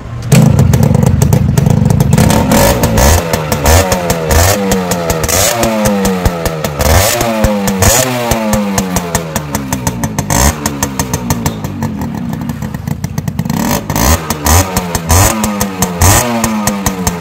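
Yamaha RX100's two-stroke single-cylinder engine revved over and over with throttle blips, its pitch climbing and dropping about once a second, with sharp pops between the revs. It eases back for a few seconds midway before the blipping resumes.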